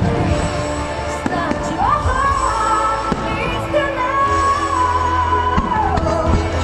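A song with a singing voice holding long, gliding notes over a steady bass, with a few sharp fireworks bangs about every two seconds.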